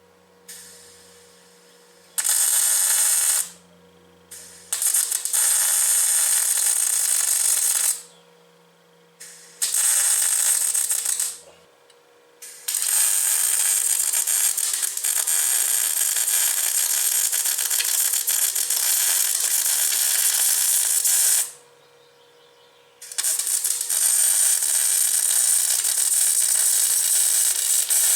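Electric welding in five bursts, each starting and stopping abruptly: a dense crackling hiss, the longest burst lasting about nine seconds. A faint steady hum sits beneath it and carries on in the gaps.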